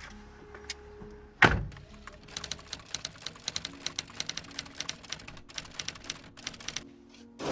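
A single heavy thunk about a second and a half in, then a rapid, irregular run of light clicks, like typing on a keyboard, lasting about four seconds.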